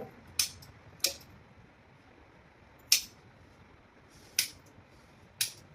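Five short, sharp cracks at uneven spacing during a chiropractic spinal adjustment of the lumbar spine.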